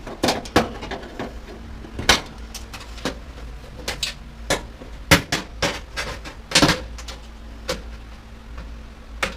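Wire snips cutting wiring out of a washer/dryer combo for scrap, with irregular sharp clicks and knocks of the tool and metal parts, about fifteen in all, the loudest about two, five and six and a half seconds in.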